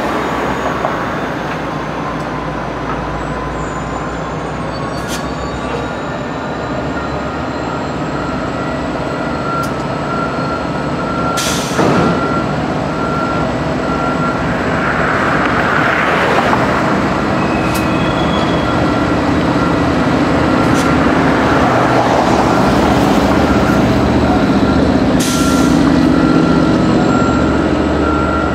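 BNSF diesel-electric locomotive running past at low speed, pulling a train of passenger cars, its engine drone growing louder as it comes close. A faint repeating tone sounds through most of it, and there is a sharp clank about twelve seconds in.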